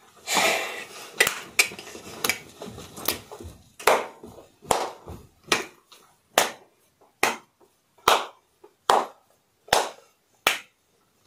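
Sharp hand claps keeping time, uneven at first and then settling into a steady beat of about one every 0.8 seconds, with a brief rustle of movement at the start.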